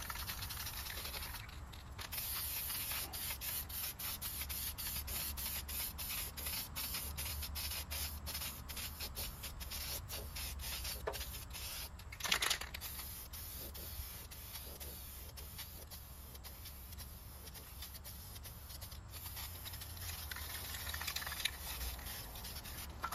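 Aerosol spray-paint can spraying: a steady hiss, with one brief louder noise about halfway through.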